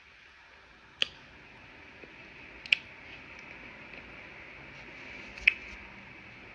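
Mouth sounds of someone chewing a thick mouthful of raw cornstarch: three short, sharp wet clicks spread over a few seconds, with faint hiss between them.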